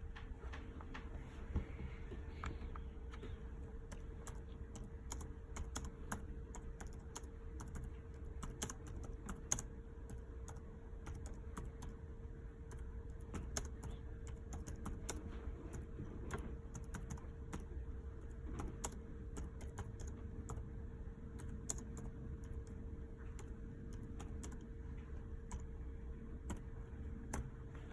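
Computer keyboard typing: irregular clicks of keystrokes over a steady low electrical hum.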